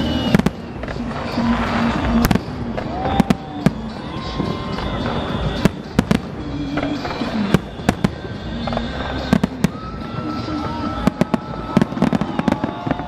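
Public New Year fireworks display: an irregular run of sharp bangs and cracks, sometimes several in quick succession, over a steady background din.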